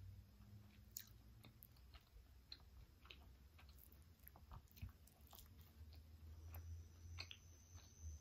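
Faint chewing of soft sticky rice in durian kolak, with scattered small clicks throughout, over a low steady hum.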